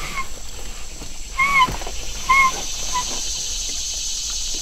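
An animal calling: short, clear, arched calls, four of them in the first three seconds, over a steady high hiss.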